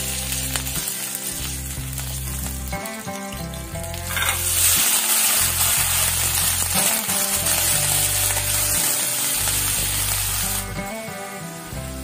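Sliced cabbage, carrot, onion and capsicum stir-frying in a wok and being stirred with a wooden spatula, sizzling steadily. The sizzle gets much louder about four seconds in and eases near the end. Background music with a low bass line plays under it.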